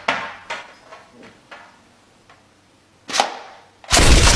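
A series of sharp knocks about half a second apart, growing fainter, with one more knock a little after three seconds. Near the end a loud blast cuts in.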